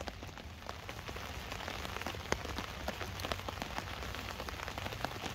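Light rain falling on a tarp overhead, heard from beneath it: a steady hiss with many separate drops ticking onto the fabric.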